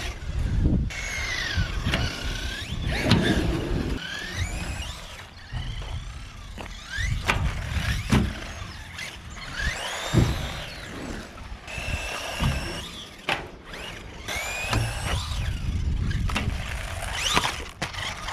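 Small electric RC buggy driven hard: its motor whines, quickly rising and falling in pitch with the throttle, with scattered knocks from landings and tumbles over a low rumble.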